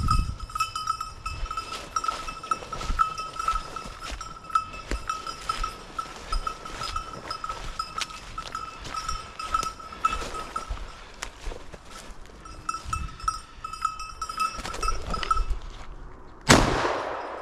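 A bell on a hunting dog's collar jingles in a quick, even rhythm as the dog quests through cover, then falls silent about fifteen seconds in. Light rustling and twig snaps run under it, and a loud rustle of brush comes near the end.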